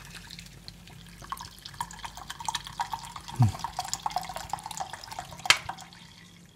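Water pouring in a stream from a drinks can into a steel saucepan of dry rolled oats, splashing unevenly. There is a sharp click about five and a half seconds in.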